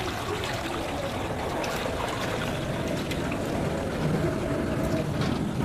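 Water pouring out of a plastic bag and splashing on a concrete floor, a steady wash of running water with small splashes and crinkles.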